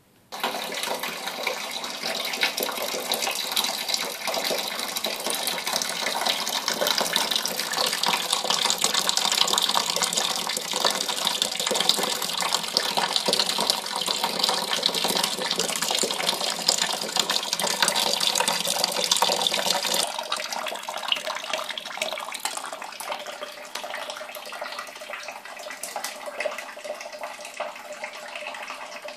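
Wort being poured in a stream into a fermenting bucket, splashing steadily into the liquid already there. It starts suddenly and turns somewhat quieter about two-thirds of the way through.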